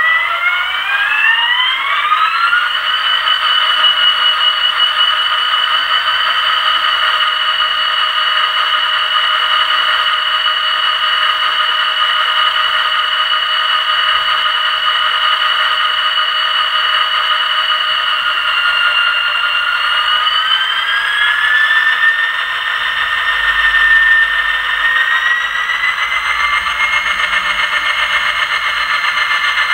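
ESU DCC sound decoder in an HO-scale GP30 model locomotive playing diesel engine sound through its small speaker, thin and without bass. The engine revs up over the first few seconds and holds steady, then climbs a notch about 20 seconds in and again about 25 seconds in.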